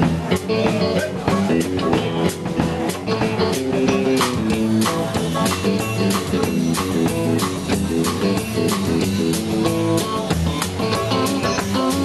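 Live band playing an instrumental passage between sung verses: a guitar plays a lead line of quick, changing notes over a steady drum-kit beat.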